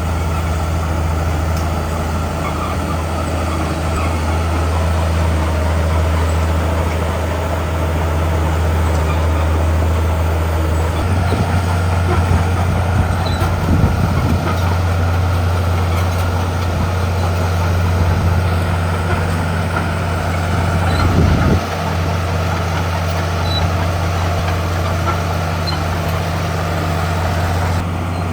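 Heavy diesel engine of earthmoving machinery running steadily under load, its note surging a little around the middle and rising briefly before dropping back about three-quarters of the way through.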